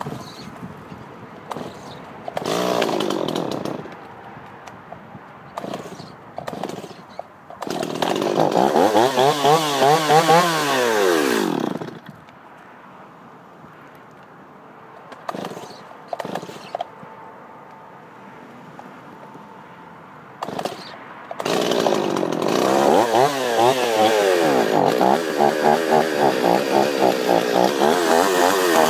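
Gas chainsaw revved up hard twice, for about four seconds and then for about seven seconds near the end, its pitch dipping and rising as it works. It drops back to a quiet idle in between, with a brief blip of throttle early on.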